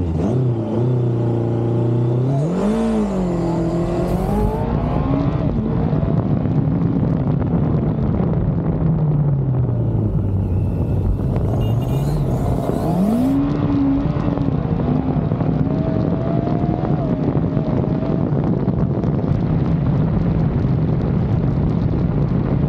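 Yamaha FJ inline-four motorcycle engine of a rally sidecar outfit under way, revs climbing sharply about three seconds in, sinking slowly for several seconds, then rising again and holding fairly steady.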